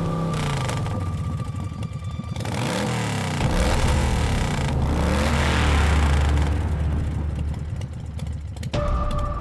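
A motor vehicle engine revving, its pitch rising and falling several times, with a steady high tone over it at the start and again near the end.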